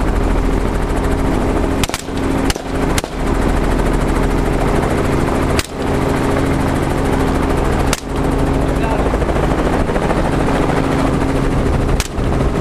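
Helicopter rotor and engine drone steadily from an open-door cabin, with six sharp AR-style rifle shots fired from the aircraft: three close together about two seconds in, then single shots spaced a few seconds apart.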